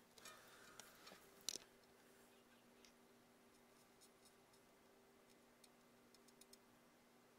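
Near silence with a faint steady hum, broken by a few light clicks and taps of small tools against a glazed porcelain platter. The sharpest click comes about a second and a half in, and a few fainter ticks follow in the second half.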